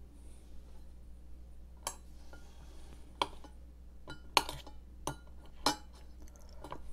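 Metal chopsticks clinking and tapping against a small stainless steel sauce cup while scooping sauce: about seven sharp clinks at uneven intervals, the first about two seconds in and the loudest past the middle.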